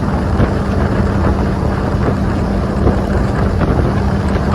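Boat motor running steadily while under way, with a constant low hum and wind rushing over the microphone.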